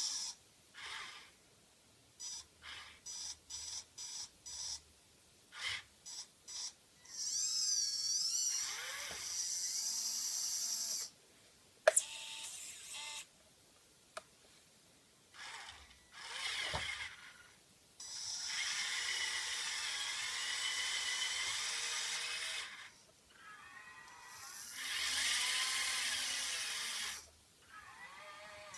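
Small electric motors of a Huina 580 radio-controlled excavator running in short stop-start bursts, then in longer runs of several seconds with a wavering whine. A single sharp click about twelve seconds in.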